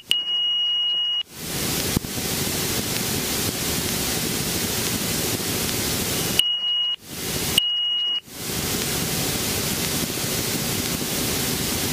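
Robinson helicopter's low rotor RPM warning horn sounding a steady high beep through the intercom, the sign of rotor RPM decaying during a practice autorotation. About a second in, a loud even rushing hiss covers it. The hiss drops away twice near the middle, briefly letting the horn through.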